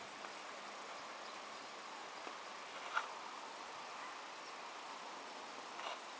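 Faint, steady high-pitched outdoor hiss with a few soft clicks or ticks, the loudest about three seconds in.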